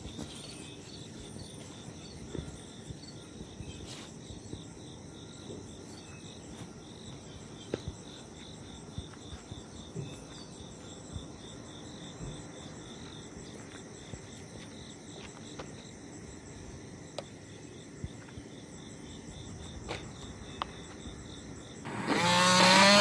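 Crickets chirping steadily in the background, with a few faint scattered clicks. Near the end a much louder motor-like sound starts up.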